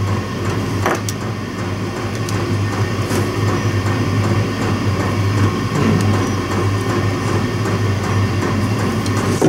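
Steady mechanical drone with a constant low hum from something running in the shop, loud enough to nearly drown out a continuity tester's beep; a couple of light clicks about a second in.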